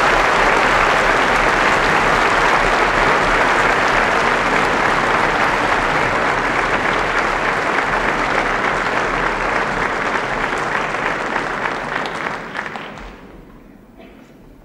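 Audience applauding, a dense steady patter of many hands clapping that thins and dies away about two seconds before the end.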